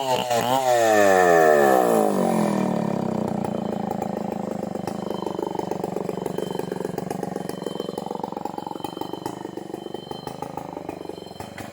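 Two-stroke chainsaw coming out of the cut: its engine pitch swoops down and back up a few times as the throttle is blipped over the first two seconds. It then drops to a lower, uneven running that slowly fades.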